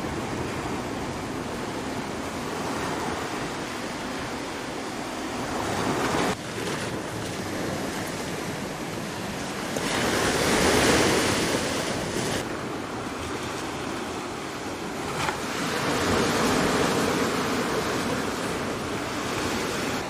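Rough sea surf breaking on a pebbly shore, a steady wash that swells louder every five or six seconds as the bigger waves come in.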